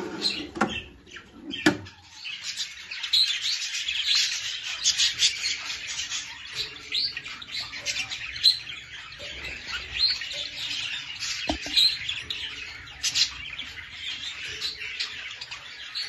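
Budgerigars chattering and warbling, a dense unbroken stream of short chirps. It sets in about two and a half seconds in, after a few sharp knocks.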